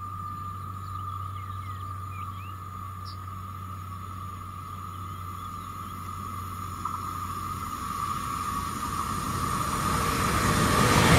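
Bombardier Talent 2 electric multiple unit approaching on the line, its running noise growing louder over the last few seconds, over a steady high whine.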